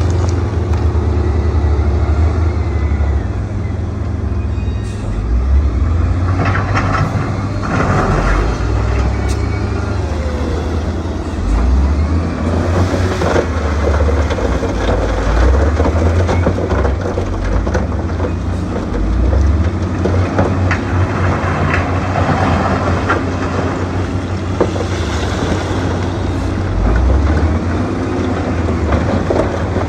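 Heavy diesel earthmoving machinery running under load, a deep engine rumble that rises and falls, with a few metallic clanks.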